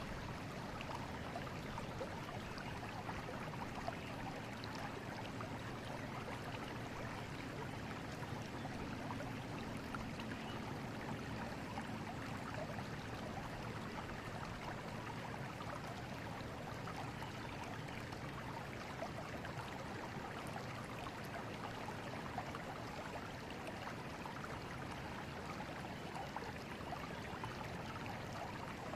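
River water running steadily over rocks, a constant rushing flow with small splashes and gurgles in it.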